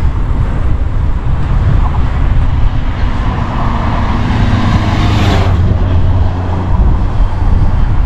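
Autobahn traffic, with one vehicle swelling past close by from about three seconds in and fading at about five and a half, over heavy wind rumble on the microphone.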